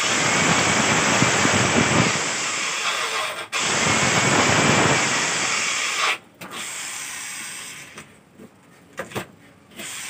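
Corded electric drill boring through a wooden block, the motor running under load as the bit cuts. It stops briefly about three and a half seconds in and again about six seconds in, then runs quieter and in short spurts near the end.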